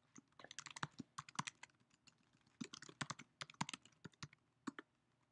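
Typing on a computer keyboard: two quick runs of key clicks about a second apart, then a couple of separate key presses near the end.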